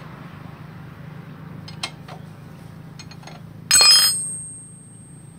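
A few light metallic clicks, then one loud clank of metal on metal that rings on in several high tones before fading, like a steel tool or engine part knocked or set down, over a low steady hum.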